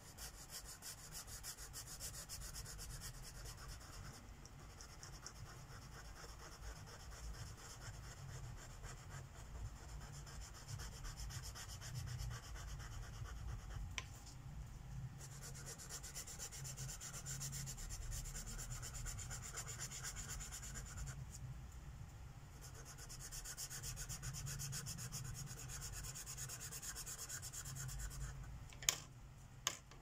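Felt tip of a Sharpie permanent marker rubbing back and forth on coloring-book paper in quick short strokes, a fine scratchy hiss that eases off briefly twice. Two sharp clicks near the end.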